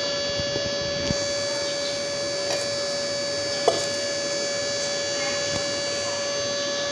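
Steady electrical hum with a set of high whining tones, unchanging throughout. A few light knocks sound over it, the sharpest a little under four seconds in.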